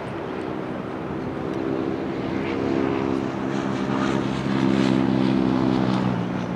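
A passing engine's low, steady drone, growing louder to a peak about five seconds in and fading near the end.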